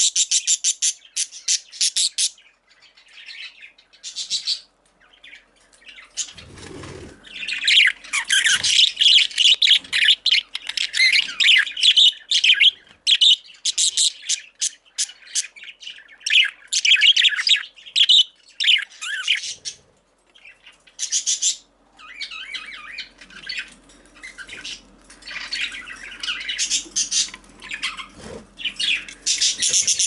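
Female budgerigar chirping and squawking in rapid runs of sharp, high chirps, broken by short pauses, with a brief low rustle about seven seconds in.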